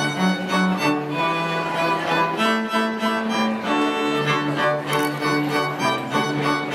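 A cello and a second, higher bowed string instrument playing a tune together, live. The cello holds long low notes under the melody.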